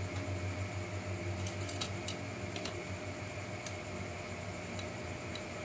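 Small plastic clicks and taps as RC truck fender liners and chassis parts are handled and fitted together: a cluster of clicks about one and a half to two and a half seconds in, then three single ticks. A steady fan-like hum runs underneath.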